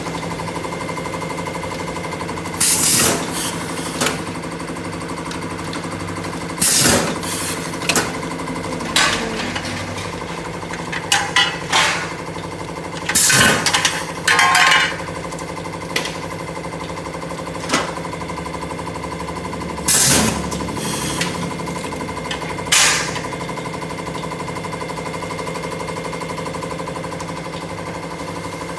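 A machine hums steadily in a metal workshop, broken by about a dozen irregular, loud metallic strikes and short scraping bursts.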